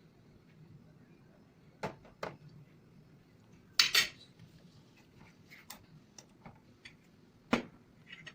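A spoon and dishes clinking while batter ingredients are measured in: two light knocks about two seconds in, a louder double clatter about four seconds in, another knock near the end, and small ticks between.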